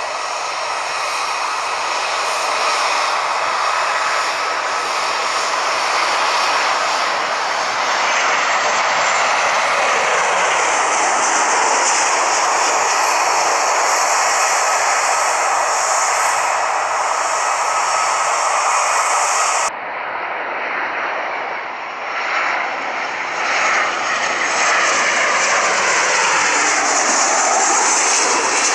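Fixed-wing aircraft engines running loud and steady as a plane moves near the runway. About two-thirds of the way through the sound changes abruptly, and then the engine noise sweeps down and back up in pitch as an aircraft passes.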